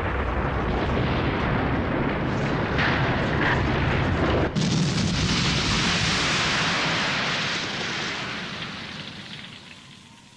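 Animated-cartoon sound effect of a huge energy blast: a loud, rushing rumble that turns to a brighter hiss about four and a half seconds in, then fades away over the last couple of seconds.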